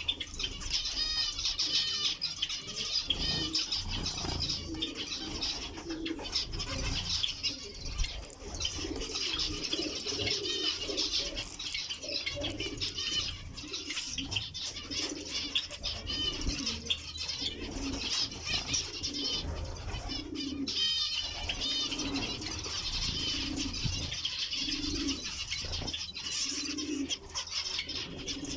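A flock of zebra finches calling continuously with short, high, nasal notes, with low repeated calls from another bird underneath, more frequent in the second half.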